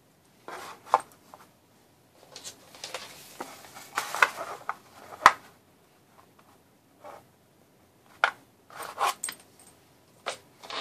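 Hands handling a dog collar and a cloth tape measure on a paper-covered table: scattered rustles and small clicks at irregular moments, the sharpest click about five seconds in.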